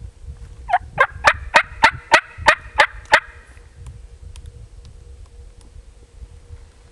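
Turkey call sounding a run of about nine loud, sharp yelps, about three a second, imitating a hen turkey; the run lasts a little over two seconds.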